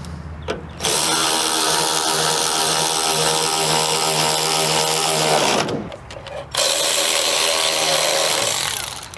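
Cordless electric ratchet running to drive fasteners while the air box and intake tube are refitted. A short blip near the start, then two long runs of motor whine with a brief pause between them.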